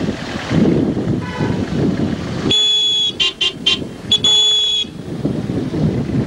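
Car horn honking in celebration: a long blast, three short toots, then another long blast, with a fainter short toot about a second in. Wind buffets the microphone throughout.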